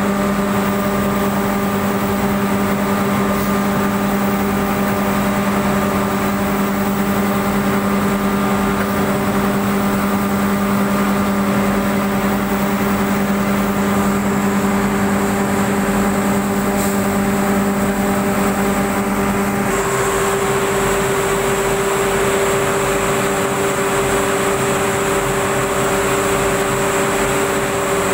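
Red chilli grinding machine (spice pulveriser) running at full speed while dried red chillies are fed into it: a loud, steady mechanical hum. About two-thirds of the way through, the pitch of the hum changes.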